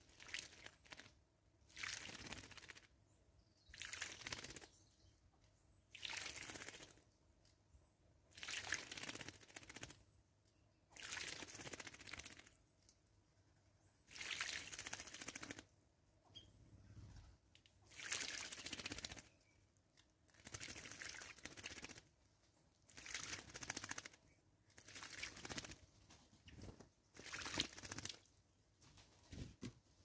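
A Cape starling bathing in shallow water, dipping and flicking its wings to splash, in short bursts of about half a second to a second, roughly every two seconds.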